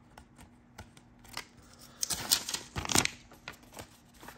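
Paper envelope and label being handled: a few faint ticks at first, then from about two seconds in a run of sharp paper rustles and clicks.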